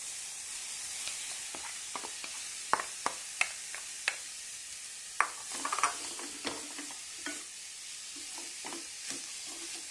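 Spatula stirring cooked rice into grated beetroot in a pan on a low flame: irregular scrapes and taps against the pan over a steady faint sizzle.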